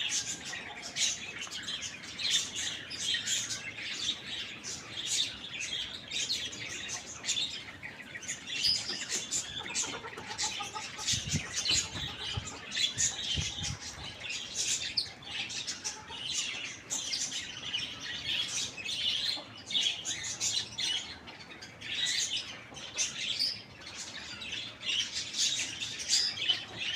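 Many small birds chirping constantly, a dense overlapping chatter of high calls, with a few dull low thumps about halfway through.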